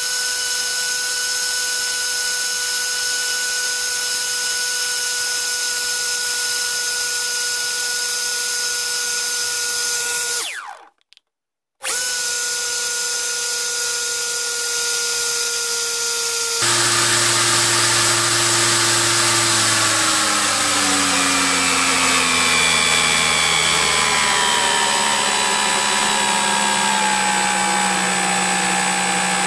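A 900 kV 3536 brushless outrunner motor spinning an 8x6 three-blade propeller on a thrust test bench, giving a steady high whine at part throttle that breaks off for about a second. A bit past halfway it gets louder and its lower hum steps down in pitch as the throttle is turned back and power and thrust fall.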